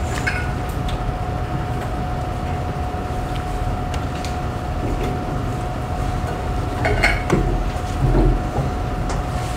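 Classroom room noise: a steady low rumble with a constant thin hum a little under 1 kHz, broken by a few faint clicks and knocks, the clearest about seven seconds in.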